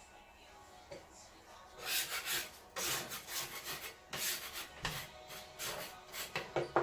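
Hands kneading fresh egg pasta dough: irregular rubbing and pushing strokes on the work surface, starting about two seconds in.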